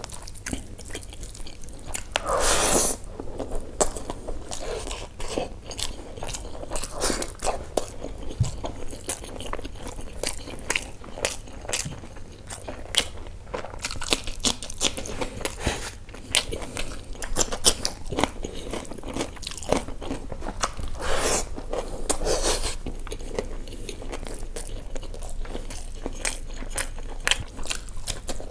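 Close-up, wet chewing and crunching of a person eating by hand: mouthfuls of basmati rice with mutton keema and liver curry, and bites of raw cucumber, with many short mouth clicks. Louder bursts come about three seconds in and again around twenty-one seconds in.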